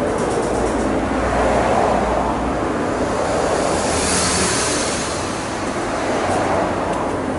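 Steady rushing, wind-like noise, with a brief brighter hiss about four seconds in.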